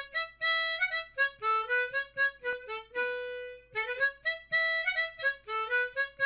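Intro music: a solo harmonica playing a quick melody of short notes, some bent up into pitch, with one longer held note about three seconds in.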